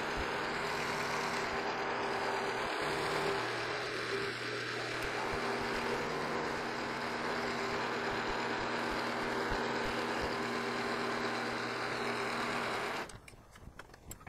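Milling machine running a 7/16-inch end mill through a light clearance pass in a metal plate, a steady machine hum and cutting noise. It cuts off abruptly about 13 seconds in.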